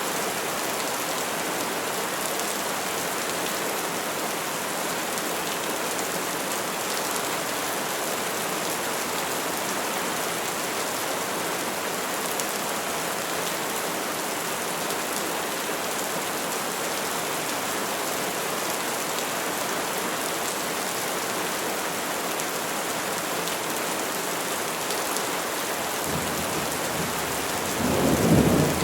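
Steady rain falling on trees, an even hiss. Near the end a low rumble of thunder builds and grows loud.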